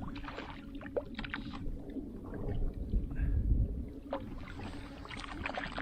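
Steady hum of a boat motor while trolling, with scattered clicks and knocks from rod and reel handling during a fight with a hooked fish, and a brief low rumble about three seconds in.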